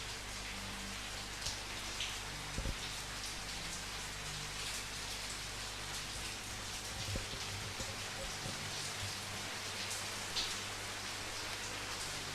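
Steady rain falling, with individual drops pattering on a surface and now and then a louder close drop. A low steady hum runs underneath, and there is a brief low knock near the start.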